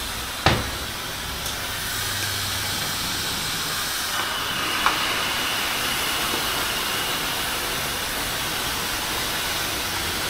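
Handheld hair dryer blowing steadily, with a faint high whine joining about four seconds in. A sharp click about half a second in.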